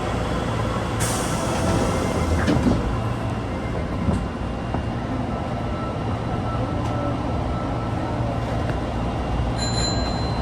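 Tanimachi Line subway car 22962 running, a steady rumble of wheels and motors heard from on board; the car is known for an unusual running noise. There is a short hiss about a second in and a brief high whine near the end.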